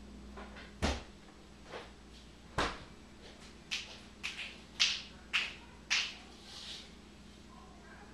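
A run of short, sharp clicks and taps at irregular intervals, about eight in five seconds, over a faint steady hum.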